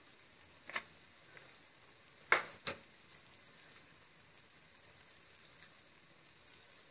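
Faint sizzle of food frying in a pan, with three sharp clicks of a utensil against the pan, the loudest about two and a half seconds in.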